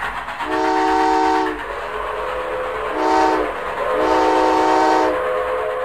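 Train whistle sounding three chord-like blasts, long, short, then long, over the steady running noise of a train.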